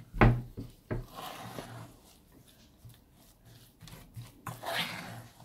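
A spoon scraping and turning a stiff, sticky oat and peanut-butter mixture in a saucepan. The loudest sound is a knock just after the start, with a smaller one about a second in; the scraping comes in stretches and is strongest near the end.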